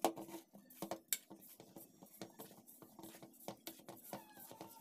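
Hands kneading flour dough in a steel mixing bowl, with scattered soft taps and knocks of hands and dough against the metal bowl.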